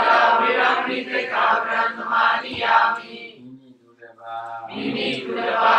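Buddhist devotional chanting by a group of voices reciting together in phrases. It breaks off briefly past the middle and then resumes.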